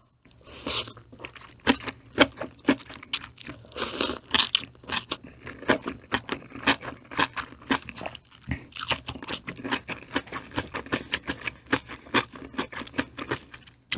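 Close-miked crunchy chewing: a person biting into and chewing crisp food in a rapid run of sharp crunches, with a brief pause about eight and a half seconds in.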